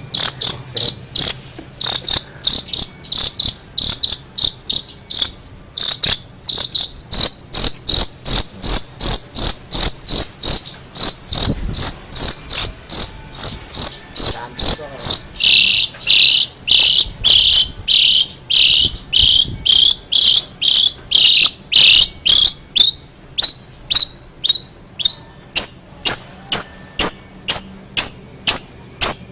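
Long-tailed shrike (cendet) calling: a long fast series of sharp, high repeated notes, about two to three a second, which drop lower in pitch for a stretch about halfway through.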